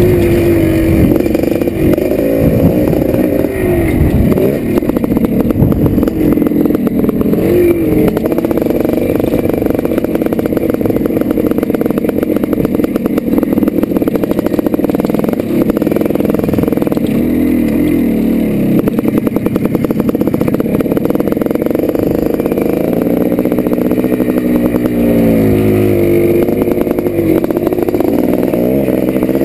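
1987 Yamaha YZ490's single-cylinder two-stroke engine being ridden hard on a motocross track, its pitch rising and falling over and over as the rider opens and closes the throttle and shifts.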